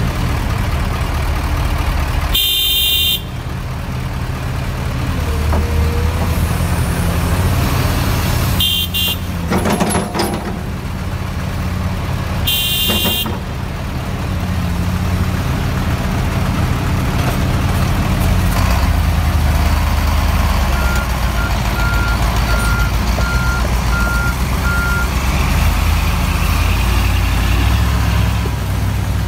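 Komatsu PC350 excavator's diesel engine and hydraulics running steadily under load while loading and digging earth. Three short high-pitched tones cut in (about 2.5, 9 and 13 seconds in), with a few knocks around the ten-second mark and a run of about six short, evenly spaced beeps past the middle.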